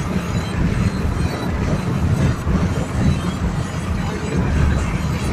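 Road noise inside a moving car's cabin: a continuous low, uneven rumble of tyres and engine, with a hiss of road and wind noise above it.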